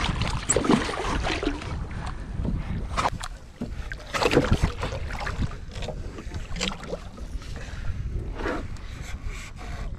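Wind buffeting the microphone, with splashing and scattered knocks against a plastic kayak's hull as a large tope shark is hauled from the water onto the angler's lap. The loudest knock comes about four seconds in.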